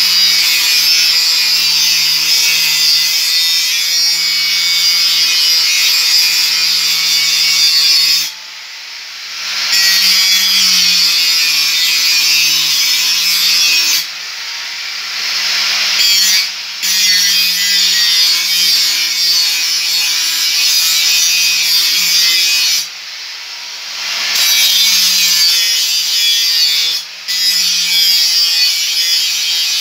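Electric angle grinder with a cut-off disc cutting steel: a loud, gritty hiss over the motor's steady whine. The hiss drops out briefly about five times as the disc comes off the work, then starts again.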